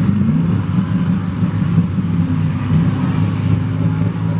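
Several demolition derby cars' engines running loud and steady, with engine pitch rising and falling as they rev.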